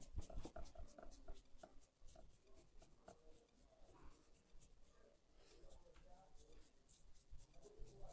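Hands rubbing and massaging oiled hair and scalp: faint, quick, irregular scratchy strokes.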